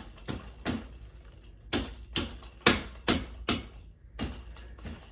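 Bassinet parts being pushed and knocked together by hand as a piece is forced into a hole it won't go into: about a dozen uneven knocks and clicks, the loudest in the middle.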